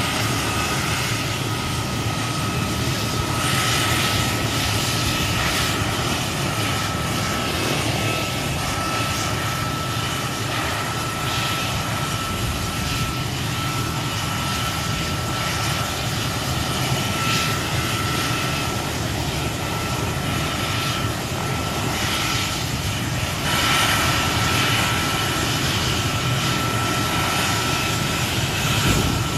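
Mil Mi-172 helicopter's twin turboshaft engines running on the ground before takeoff: a steady high turbine whine over a constant rumble, growing a little louder about two-thirds of the way through.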